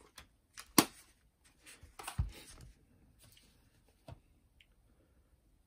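A plastic Panasonic portable cassette player being handled and set down on a cloth-covered table. There is a sharp click under a second in, a soft thump with a brief rustle about two seconds in, and a lighter click about four seconds in.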